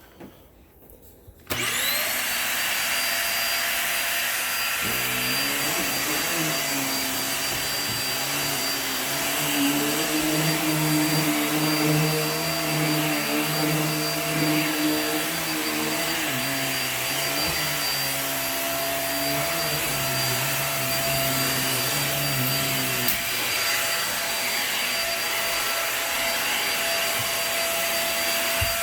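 Hoover React QuickLift upright vacuum switching on about a second and a half in and spinning up quickly to a steady high-pitched motor whine. A lower, wavering hum joins a few seconds later and drops away about two-thirds of the way through, while the motor runs on.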